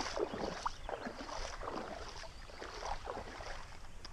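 Light, irregular water splashing and sloshing from a hooked zander being played at the surface, its line caught around a water lily.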